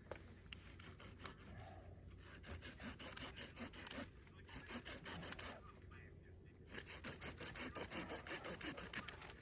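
Faint, rapid crackling of a just-lit campfire, a Duraflame firelog starting to catch among wet wood, with two short breaks in the crackle.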